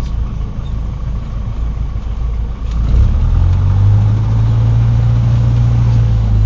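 Cessna 150's four-cylinder Continental O-200 engine and propeller running steadily at low power, a low drone. About three seconds in, a steady low hum grows louder, as if the engine picks up a little power, and it eases off right at the end.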